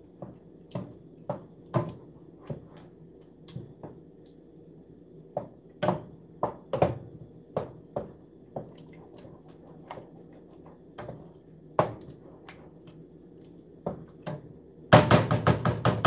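Wooden spoon stirring thick, cheesy buffalo chicken dip in a stainless steel pot, knocking irregularly against the pot's sides. Near the end comes a quick run of about ten louder knocks, lasting about a second.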